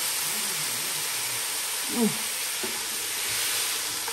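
Food frying in a hot pan: a steady sizzling hiss, with a brief low hum of a voice about two seconds in.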